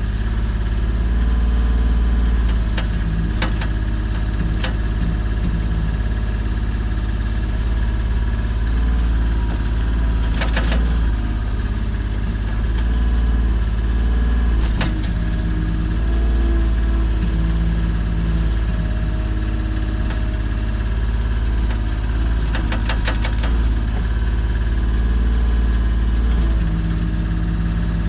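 Volvo EC25 mini excavator's diesel engine running steadily under hydraulic load while digging a trench, its note shifting a little as the arm and bucket move. Sharp clicks and clanks come now and then, with a quick run of them about ten seconds in and another later on.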